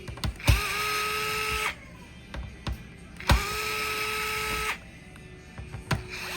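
Small electric screwdriver motor running in three short bursts of about a second each, backing out screws. Each burst starts with a click, spins up briefly, then holds a steady whine before stopping abruptly.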